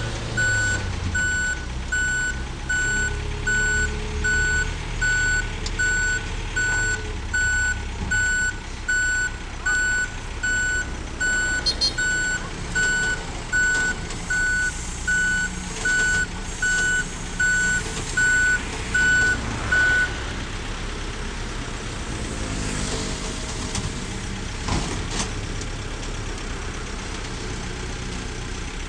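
Heavy truck's reversing alarm beeping about once a second over a low diesel engine rumble; the beeping stops about two-thirds of the way through and the engine keeps running.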